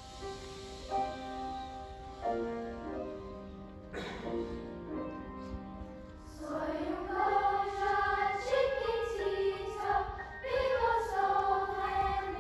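Grand piano playing a short introduction of separate struck notes, then a children's choir enters singing about six seconds in, with the piano accompanying.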